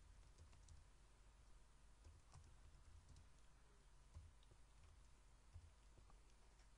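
Faint, scattered keystrokes on a computer keyboard over a low steady hum.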